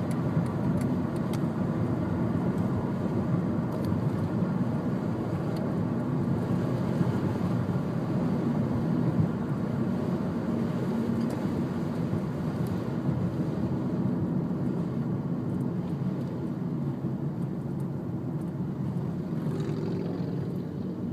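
Steady road and engine drone of a car driving, heard from inside the cabin.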